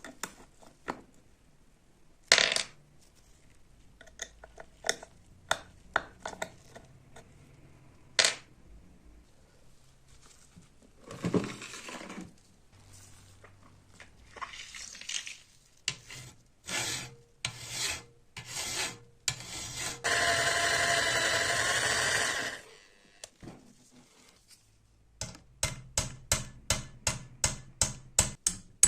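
Workshop handling of metal parts and hand tools: scattered clinks and knocks with scraping or rubbing strokes. About two-thirds through, a steady whining noise runs for about two and a half seconds and stops. Near the end comes a quick run of sharp clicks, about three or four a second.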